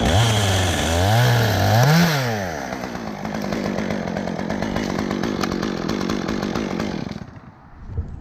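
Chainsaw revved up three times in quick succession, then running steadily for several seconds before it stops about seven seconds in.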